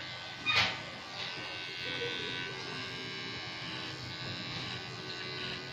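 Electric hair clipper running with a steady buzz while being run through the hair, with one brief sharp clack about half a second in.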